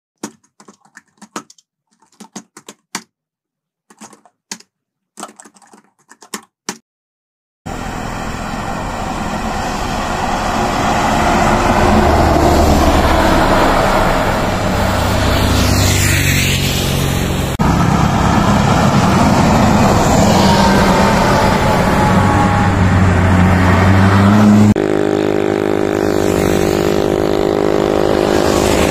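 A series of short clicks and bursts with silence between them, then large diesel intercity buses passing on a highway, engines accelerating with a rising and falling pitch. One of them is a Victory Liner coach on a MAN 19.360 chassis, and near the end a truck goes by with a steady engine note.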